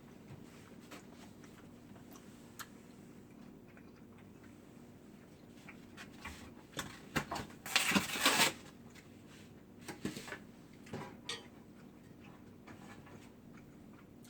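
Eating and food-handling sounds over a steady low room hum: scattered light clicks and taps, with a dense, noisy burst of about a second around the middle, likely crunching or rustling.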